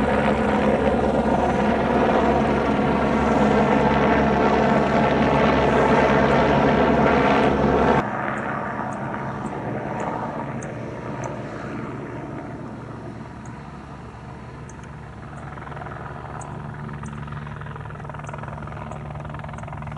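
Helicopter in flight, its rotor and turbine running with a loud, steady many-toned whine. About eight seconds in, the sound cuts abruptly to a quieter, more distant helicopter flying low, whose lower hum continues steadily.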